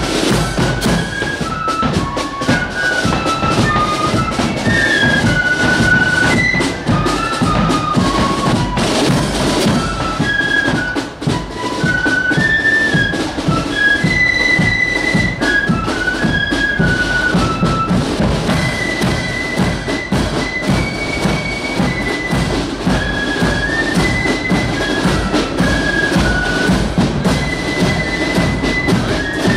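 Marching flute band playing a tune on flutes over beating drums.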